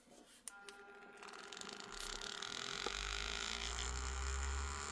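Handheld cordless hobby paint shaker (Green Stuff World) switched on with a click, its small motor spinning up over a couple of seconds into a steady hum and buzz as it vibrates a bottle of acrylic paint to mix the settled pigment.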